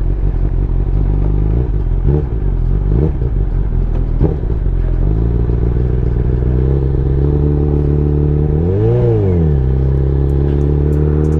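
Honda CB1000R's inline-four engine running at low speed while ridden, with small changes in revs over the first few seconds. The engine note then settles and climbs slowly, with a brief rise and fall in revs about nine seconds in.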